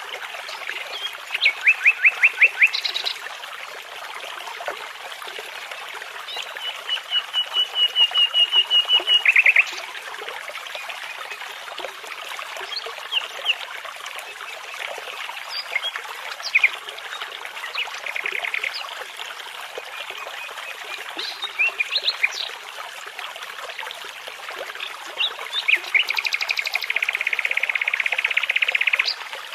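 Common nightingale singing in separate phrases of rapidly repeated notes and trills, with a long fast trill near the end, over the steady rush of a babbling brook.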